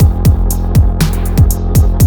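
Electronic background music with a steady kick drum, a held bass line and high hi-hat-like ticks.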